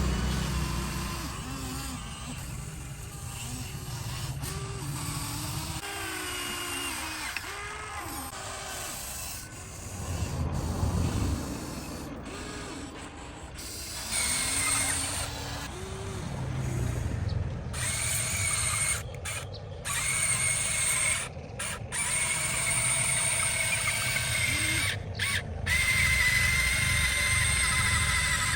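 Radio-controlled model excavator working: the whine of its small electric motors and hydraulic pump, rising and falling in pitch as the machine moves. It turns steadier and higher from about halfway, with a few brief cut-outs near the end.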